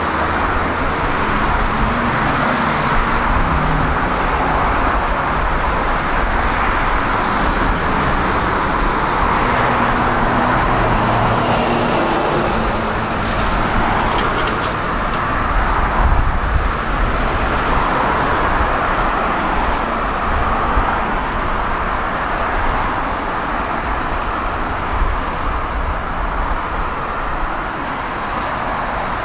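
Steady road traffic noise, with vehicles going by and the sound swelling briefly around the middle.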